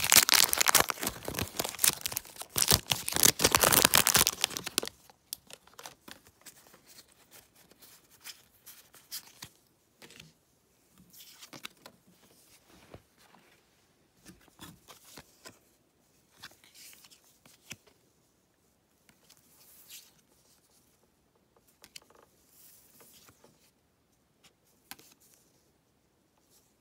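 Foil wrapper of a Pokémon booster pack crinkling and tearing loudly as it is ripped open and crumpled, for about five seconds. After that, faint scattered rustles and taps of trading cards being handled on a table.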